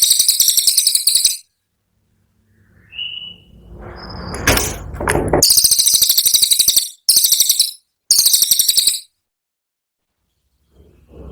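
Cililin songbird giving its rapid 'tembakan' burst song: very high, fast trills of rapidly repeated notes in four short bursts with silent gaps between. A low rushing noise swells up in the pause before the second burst.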